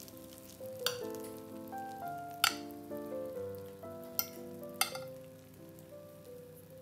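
A metal fork clinking against a glass baking dish and a ceramic plate while lifting and cutting a baked meatball: four sharp clicks, the loudest about two and a half seconds in. Soft background music with held notes plays underneath.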